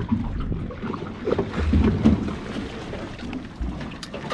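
Wind rumbling unevenly on the microphone over the open water, with a few sharp clicks near the end.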